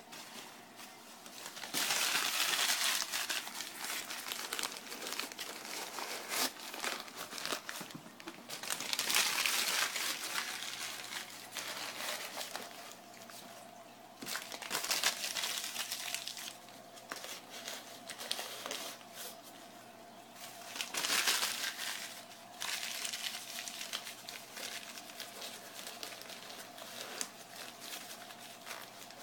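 Crumpled newspaper being rustled and pressed in as packing around a container in a styrofoam shipping box, in several bouts with short pauses between.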